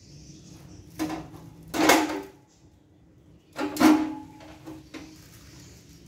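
Clattering as the water heater's white plastic front cover is pulled free and set aside: a small knock about a second in, then two louder rattling clatters around two and four seconds.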